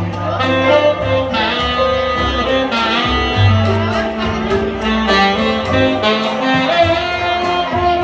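Tenor saxophone playing a melody live over a recorded backing track, with a steady bass line underneath.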